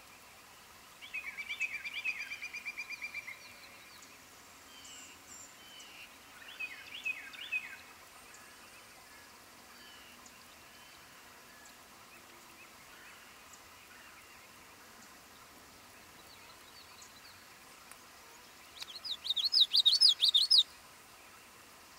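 Wild songbirds singing. A fast, even trill comes about a second in and lasts a couple of seconds, a short phrase of a few notes follows a few seconds later, and a louder, higher, rapid song comes near the end.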